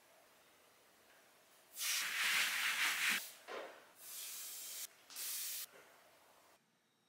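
Four bursts of loud hissing, the first and loudest lasting over a second, then three shorter ones, cutting off sharply near the end.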